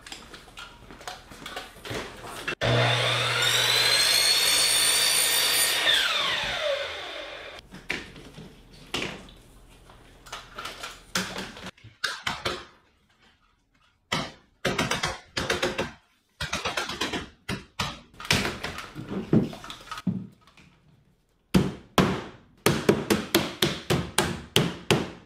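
A power-tool motor runs for about four seconds and winds down, falling in pitch. Then a rubber mallet knocks again and again on a plastic Screen Tight cover, seating it onto its base track on a wooden screen frame, with quick regular blows near the end.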